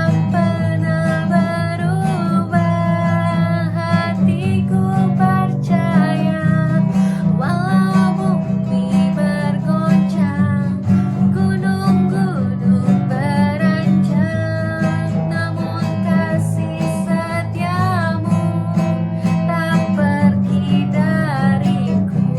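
Worship song with a strummed acoustic guitar and a singing voice.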